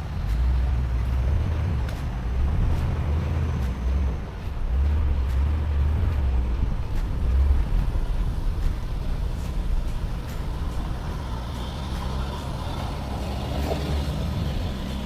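A four-wheel-drive vehicle's engine running, a steady low rumble that swells and eases.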